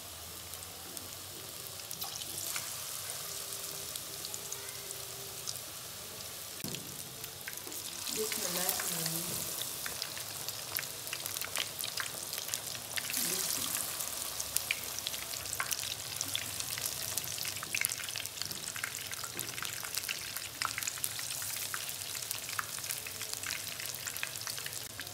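Besan-battered fish pieces deep-frying in hot ghee in a kadhai: a steady sizzle full of small crackling pops. It swells louder about eight and thirteen seconds in, as more pieces are added to the fat.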